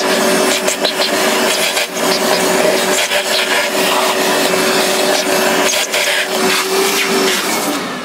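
Shop vacuum running, its hose nozzle sucking old coffee grounds out of the metal doser chamber of a Mazzer Super Jolly grinder, with scattered clicks and knocks. It stops near the end.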